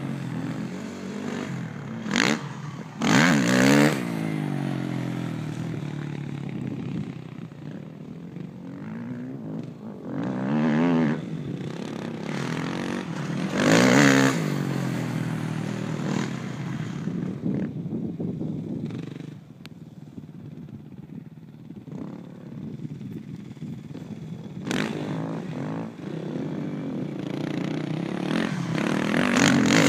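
Dirt bike engine revving up and down through the gears as it rides the track, its pitch rising and falling with the throttle. It grows loud each time it passes close, a few times, and fades between passes as it rides off across the jumps.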